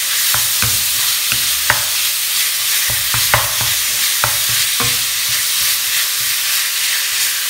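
Ground beef sizzling in a hot pan as a wooden spatula breaks it up and stirs it, with irregular scrapes and knocks of the spatula against the pan over a steady frying hiss.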